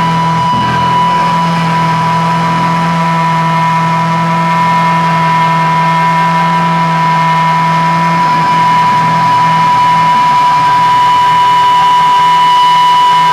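Loud sustained electric-guitar amplifier feedback and drone from a live band: a steady high ringing tone over a held low note that drops away about eight seconds in, with no drums.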